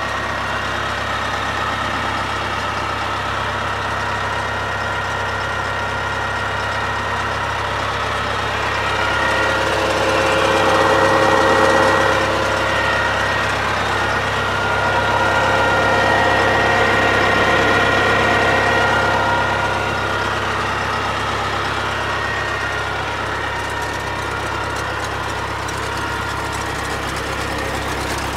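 Yanmar CT-65 crawler tractor's diesel engine idling steadily, growing louder for a few seconds twice midway through.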